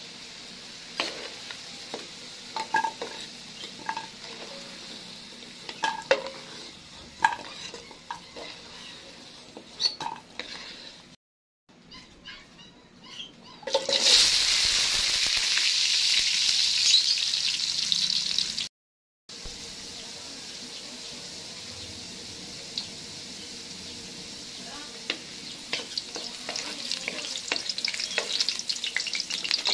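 Potato cubes frying in hot oil in a pan, with a utensil clicking against the pan as they are stirred. About fourteen seconds in, carrot chunks are tipped into the oil and set off a loud burst of sizzling lasting several seconds. Then the carrots fry steadily, with more stirring clicks near the end.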